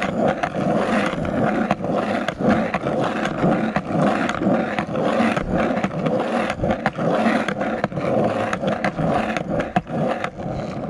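Skateboard wheels rolling steadily over rough, cracked asphalt with a continuous gritty rumble and scattered sharp clicks. The board is being carved side to side in a zigzag pumping motion to keep it moving.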